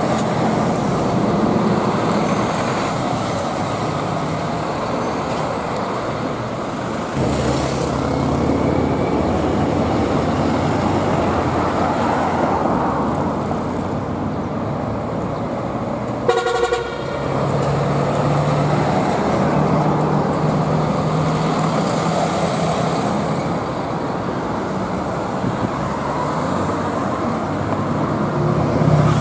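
City street traffic with trucks driving past, their diesel engines running. A short horn toot sounds about sixteen seconds in.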